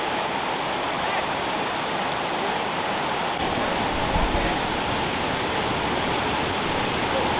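Waterfall rushing steadily close by, with a brief low bump about four seconds in.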